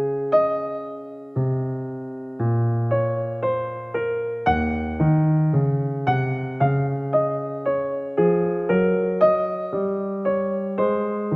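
Background music: a piano melody of struck notes over sustained low chords, about two notes a second.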